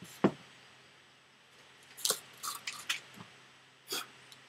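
A few scattered short clicks and knocks, with a small cluster about two to three seconds in: handling noise.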